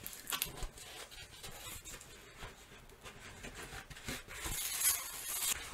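Cardboard mailer being opened by hand: faint rustling and scraping of cardboard with small taps and clicks, a louder rustle near the end.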